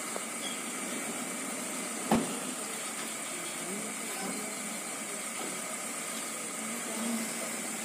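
Steady background hiss broken by a single sharp knock about two seconds in, with faint voices in the background in the second half.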